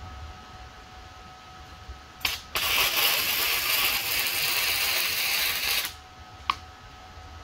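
Arc welding on steel plate: a brief strike about two seconds in, then a steady hiss of the arc running a weld for about three seconds, which cuts off suddenly. A single sharp click follows about half a second later.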